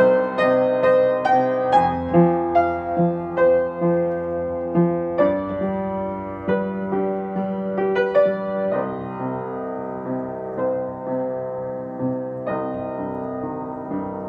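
Upright piano played slowly, improvising on a C minor, F minor and G major chord progression: single notes struck over held chords, thinning out in the second half.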